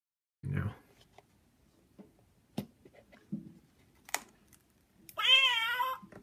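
Recorded cat meow, the taco cat meow, played by the sound feature hidden in the lid of an Exploding Kittens first-edition box as the magnetic lid is opened: one wavering meow, the loudest sound, about five seconds in. Before it there are a soft thump about half a second in and a few light clicks from the cardboard box being handled.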